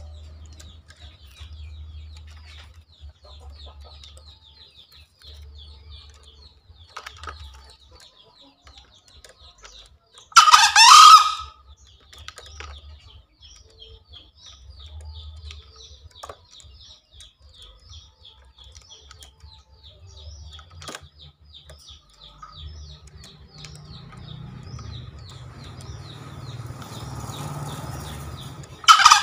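Green junglefowl rooster crowing: one short, loud, screechy crow about ten seconds in, and another starting right at the end. A fast high-pitched ticking runs steadily underneath.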